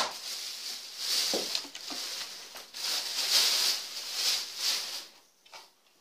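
Thin plastic bag crinkling and rustling as it is pulled off a new chainsaw and lifted away, dying down about five seconds in.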